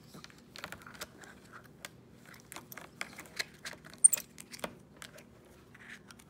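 Irregular light plastic clicks and taps from a capuchin monkey's hands working a Play-Doh tub and its snap-on cap, trying to shut it. The sharpest click comes about four seconds in.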